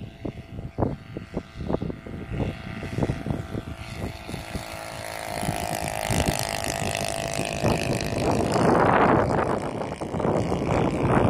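Twin-cylinder four-stroke nitro engine of a 2.4 m RC Piper Cub model in flight. Its drone swells as the plane passes close, about halfway through. Gusts of wind buffet the microphone throughout and are loudest near the end.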